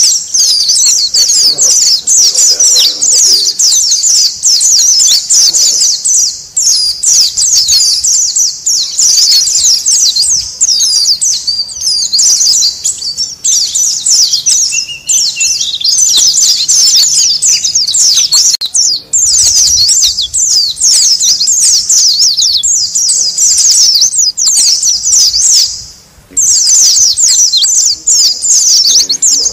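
A colony of white-eyes (pleci) chirping rapidly and continuously, a dense, noisy chatter of many high twittering calls. It breaks off briefly near the end.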